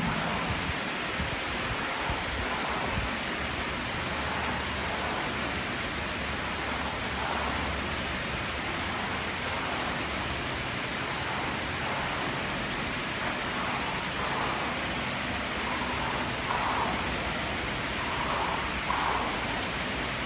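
Air rowing machine's fan flywheel whooshing steadily, swelling with each pull about every two and a half seconds.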